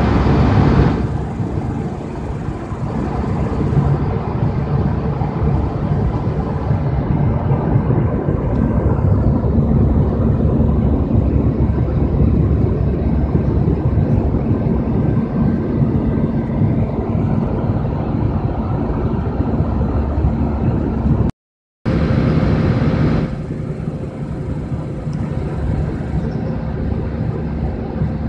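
Steady drone of a jet airliner's cabin in flight, engine and airflow noise with a couple of low steady hums under it. The sound drops out for a moment about 21 seconds in, then carries on.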